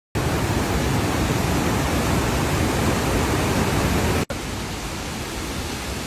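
Waterfalls and river cascades in full flood after rain: a steady, heavy rush of water. About four seconds in it cuts off abruptly and gives way to a quieter steady rush.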